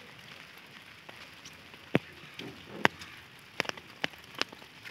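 Light rain falling steadily, with scattered sharp taps of single drops striking an umbrella, about half a dozen of them in the second half.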